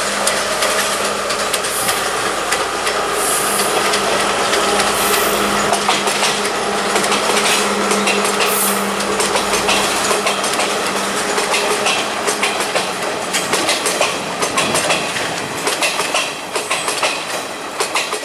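Sri Lanka Railways diesel multiple unit passing close by: a steady diesel engine note under loud running noise and the clicking of wheels over rail joints. The engine note fades about three quarters of the way through while the wheel clicks carry on.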